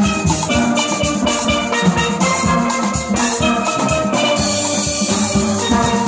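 A steel band playing a lively tune together on many steel pans struck with sticks, with a steady low beat underneath.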